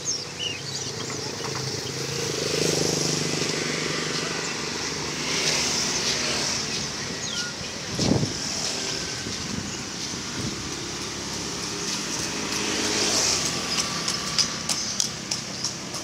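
Caged songbirds chirping over the running of small motorbike engines, with scattered voices. A single sharp knock about eight seconds in is the loudest sound.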